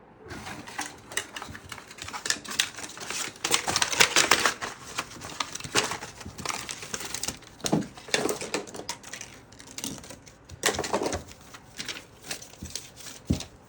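Cardboard packaging and paper inserts being handled and sorted through: a busy run of rustling with small clicks and taps, and a few sharper knocks.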